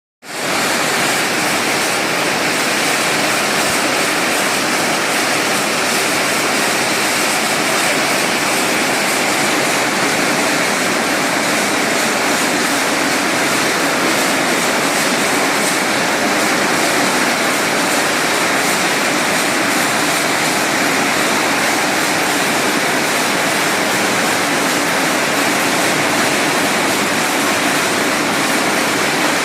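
Automatic cashew nut cutting and shelling machine running: a loud, steady, even noise with no clear rhythm.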